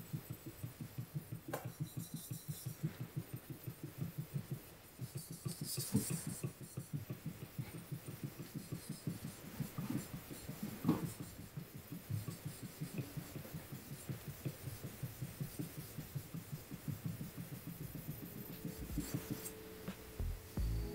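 Gyuto kitchen knife blade being polished on an ultra-soft uchigumori natural sharpening stone: quick, evenly paced strokes of steel rubbing across stone, several a second, with a couple of sharper scrapes along the way.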